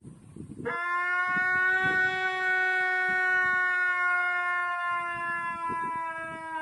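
Arabian wolf howling: one long, steady howl that starts under a second in and sinks slightly in pitch, over low rumbling noise.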